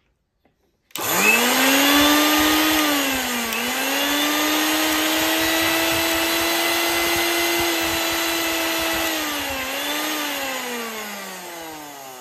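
Mixer grinder's universal series motor, opened up and running without its jar, switches on about a second in and spins up to a high whine. It dips briefly in pitch twice, then is switched off near the end and winds down with falling pitch. It runs normally, which points the fault at the overload switch.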